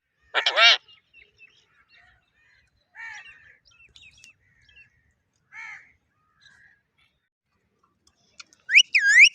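Pet parrot calling: a loud harsh squawk near the start, softer calls and small chirps through the middle, then two loud gliding whistles near the end.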